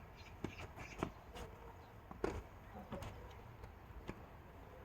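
Tennis balls being struck and bouncing on the court, heard as a scattered series of short sharp knocks, with footsteps between them.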